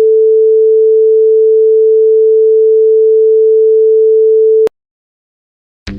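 A loud, steady electronic tone at a single pitch, like a broadcast test tone, held unchanged and then cut off abruptly about four and a half seconds in, leaving silence.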